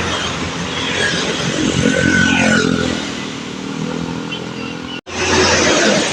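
Roadside traffic: motorcycles and other vehicles driving past, their engines rising and falling in pitch. The sound drops out for an instant about five seconds in.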